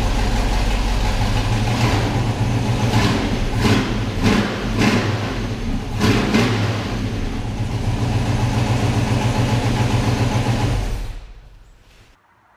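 Built 355 small-block Chevy V8 with headers and a side-exit exhaust, running at idle and revved in several short blips, then settling back to a steady idle. The engine is shut off about eleven seconds in and the sound dies away.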